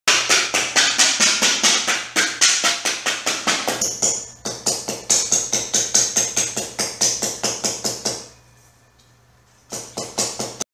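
A hammer striking aluminium sheet on a wooden stump in quick, even blows, about five a second, each with a bright metallic ring. The hammering stops about eight seconds in and starts again near the end.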